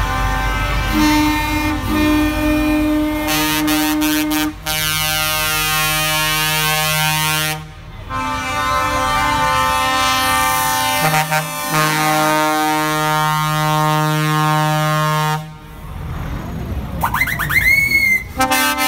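Truck air horns blowing in long held blasts, several tones sounding together as a chord: one blast of about four seconds, then a longer one of about seven seconds. Truck engines run underneath in the gaps and near the end.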